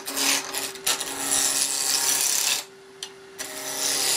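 Wood lathe turning while a gouge cuts the spinning workpiece: long stretches of rough cutting noise over a steady motor hum, with a short break in the cut about three seconds in where only the hum remains.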